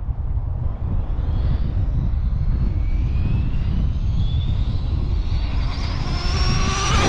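Arrma Limitless V2 RC speed car on a full-speed run: the whine of its electric motor climbs in pitch and loudness as it approaches, peaking as it passes close near the end. Heavy wind rumbles on the microphone throughout.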